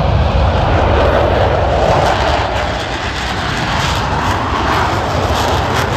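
Aircraft engine noise from a plane flying past, a loud steady rush that swells slightly and then eases.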